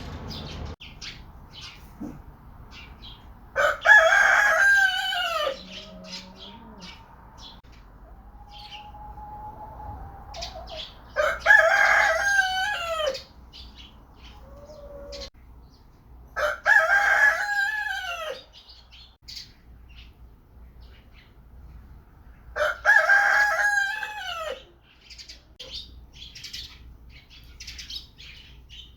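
Rooster crowing four times, each crow about two seconds long and roughly six seconds apart, with short high chirps between the crows.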